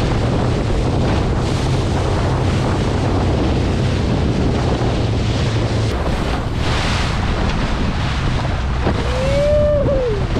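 Wind buffeting the microphone over the rush of water and waves along a moving boat, with a steady low engine drone underneath. Near the end a short pitched call rises and falls.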